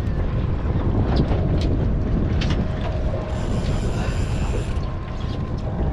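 Boat engine running steadily while trolling, with wind buffeting the microphone; a brief hiss comes in a little past the middle.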